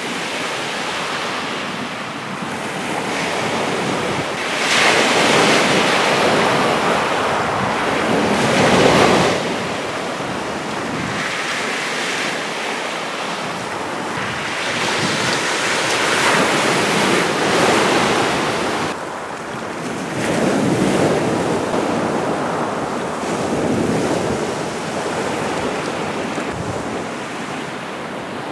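Sea waves breaking and washing up a shingle beach and around wooden groynes, swelling and falling back in surges every few seconds.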